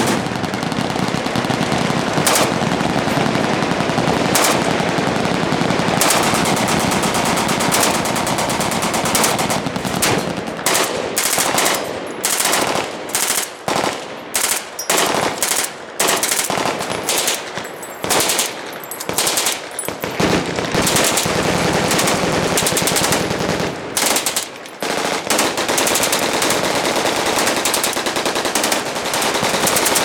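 Full-auto machine-gun fire, rapid shots running almost without a break. In the middle stretch it breaks into short bursts with brief pauses between them.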